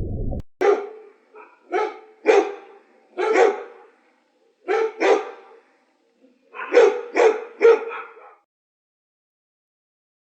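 A dog barking: about ten short, sharp barks in loose groups of two or three, stopping about eight seconds in.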